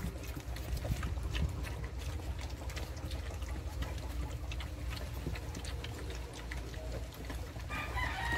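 A litter of 26-day-old German shepherd x Belgian cross puppies lapping and slurping milk from a plastic basin: a busy patter of small, irregular wet clicks. Near the end a rooster starts crowing.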